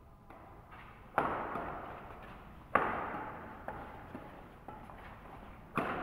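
Badminton rackets striking a shuttlecock during a doubles rally: three sharp hits, about a second in, near three seconds and near the end, each echoing off the courtyard walls, with lighter taps between.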